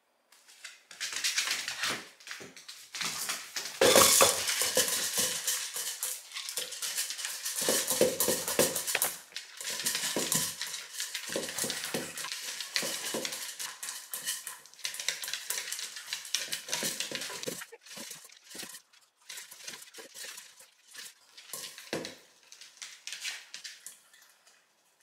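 Small Shiba Inu eating dry kibble from a bowl: dense crunching and chewing with the kibble and bowl clinking as she noses through it, loudest about four seconds in and thinning to scattered clicks near the end.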